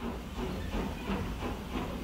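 Train sound effect: a locomotive chugging rhythmically with a steady hiss, slowly getting louder.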